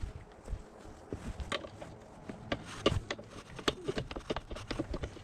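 Irregular metal clicks and knocks of hand tools and bike parts being handled while a dirt bike is taken apart.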